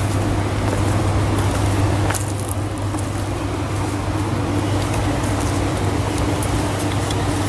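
Steady rush of a shallow river flowing over a stony bed, with scattered small clicks.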